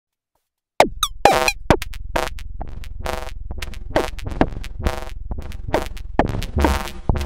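Sequenced electronic percussion and pitched feedback tones made from a Behringer UB802 mixer's high-gain noise and aux send/return feedback loop, triggered and modulated by an Elektron Octatrack. It starts about a second in, with sharp rhythmic hits, several falling steeply in pitch like kick drums, over a steady low bass.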